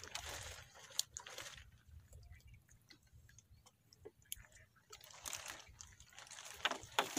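Fishing net being hauled and picked over by hand: soft crackling and rustling in short bursts, with scattered small clicks in between.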